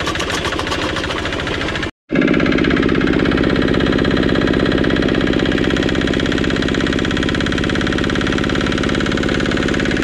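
Single-cylinder diesel engine chugging steadily as it belt-drives an empty jaw crusher, with the throttle being worked to bring up the speed. The sound cuts out completely for a moment about two seconds in, then carries on slightly louder.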